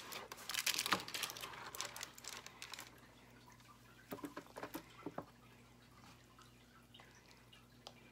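Plastic food containers and food being handled during meal prep: a few seconds of rustling and clattering, then a handful of short clicks about four to five seconds in, then quiet.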